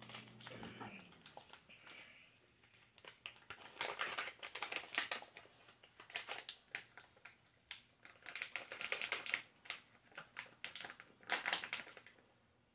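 Plastic candy pouch crinkling as it is handled, shaken and tapped out over a palm, in several bursts of crackly rustling.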